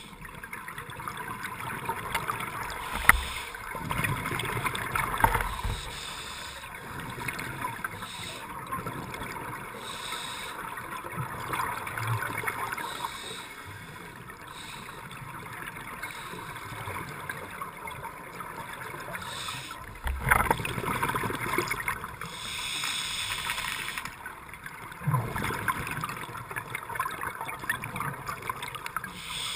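Scuba breathing heard underwater: noisy surges of exhaled bubbles gurgling up from the regulator, several times, over a steady hiss.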